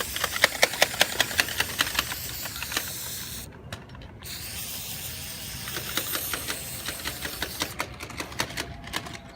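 Aerosol spray paint can spraying with a steady hiss and a rapid rattling click. The hiss breaks off about halfway through, then starts again.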